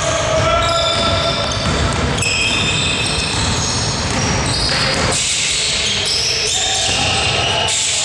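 Indoor basketball game in a sports hall: the ball bouncing as it is dribbled up court, with many short high sneaker squeaks on the floor and players' footsteps echoing in the hall.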